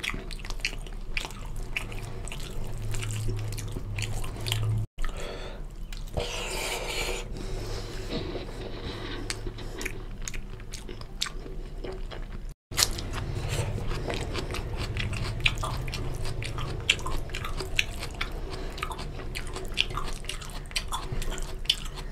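Close-miked wet chewing and lip-smacking of a person eating chicken curry and rice by hand, with many small clicks from the mouth. Crunchy bites of raw onion come in, and the audio cuts out for an instant twice.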